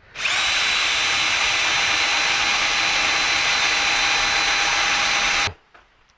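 Power drill running at a steady speed for about five seconds, drilling into the rack to take a nutsert, then stopping abruptly.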